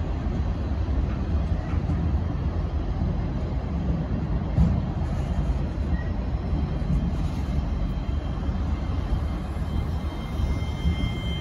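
Norfolk Southern freight cars rolling past close by: a steady low rumble of steel wheels on the rails, with one louder knock about four and a half seconds in.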